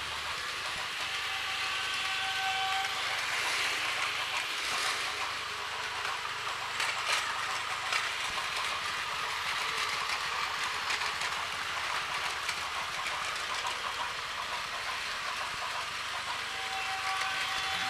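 Battery-powered Plarail toy trains running on plastic track: a steady whir of small electric motors and gears with light clicking from the wheels on the track.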